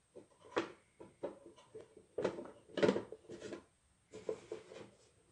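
White styrene plastic silo tubes being handled and pressed together on a plywood bench while being test-fitted: a string of irregular knocks and scrapes of plastic against plastic and wood, the loudest a little past halfway.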